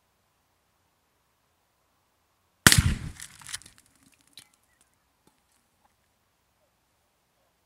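A 20-gauge slug shot and the mini propane tank it hits bursting into a fireball: one sudden loud blast about two and a half seconds in, with a ragged tail that dies away within about a second.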